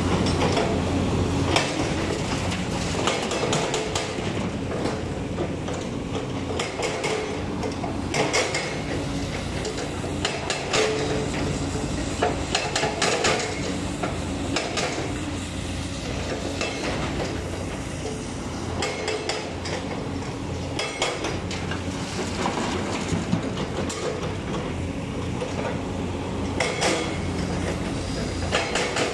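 JCB 220 LC tracked excavator working rock: its diesel engine runs steadily under load while steel bucket and tracks clank and scrape against stone, with repeated sharp metallic knocks.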